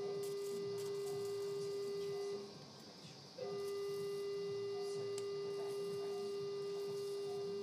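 Electrosurgical unit giving its steady activation tone while the cautery pencil cuts tissue. The tone stops for about a second a couple of seconds in, as the pencil is released, then sounds again.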